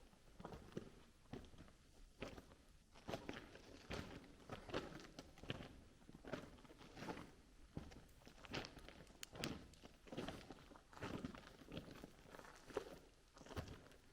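Faint footsteps of a person walking at a slow, even pace, a little more than one step a second.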